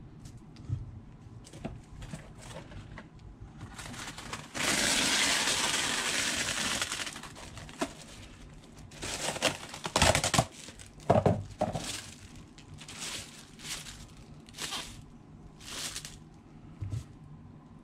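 Wax paper being pulled off its roll with a long rustle, torn off in a few sharp rips, then crinkling in short strokes as the sheet is spread flat.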